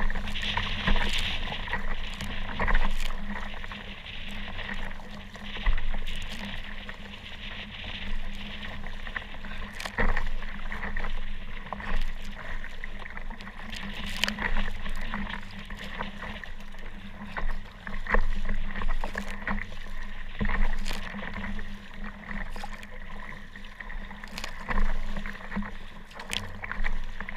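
Kayak on rough water: paddle strokes and waves splashing against the hull in irregular swells, with sharp knocks now and then.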